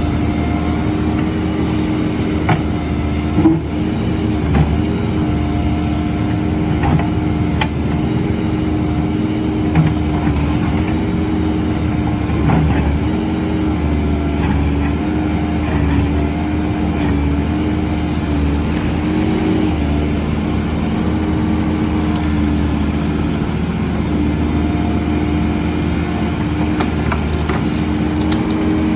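Backhoe loader's diesel engine running steadily, its pitch wavering slightly, with a few short knocks in the first half.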